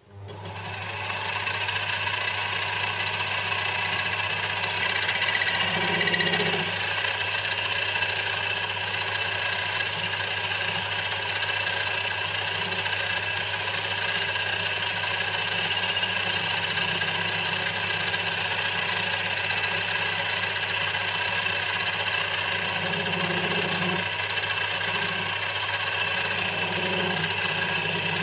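Small bench metal lathe switched on, spinning up within about a second, then running steadily with a whine from its motor and gears while a light facing cut of about ten thou is fed into the inner section of the cast compound base.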